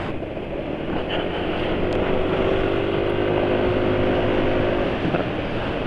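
Yamaha scooter engine running under way and speeding up gently, its note rising slightly, with wind on the microphone. The engine oil is dosed with 100 ml of corn cooking oil as an additive, and the rider still finds the engine somewhat rough at low rpm.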